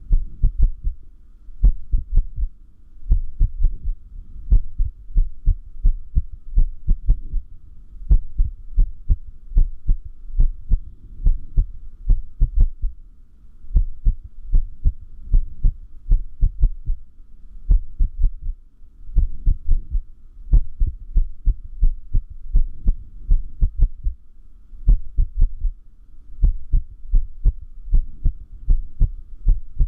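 Human heart beating in paired lub-dub thumps with an irregular rhythm: runs of beats are broken every few seconds by uneven gaps and pauses, the sign of an arrhythmia.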